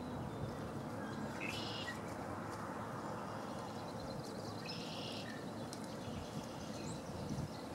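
Two short, high songs of red-winged blackbirds, about three seconds apart, over a steady background hiss.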